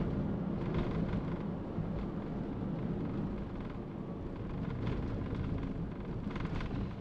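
Steady road and running noise of a moving Toyota Calya, heard in the cabin, with a few faint knocks as the tyres pass over an uneven road surface.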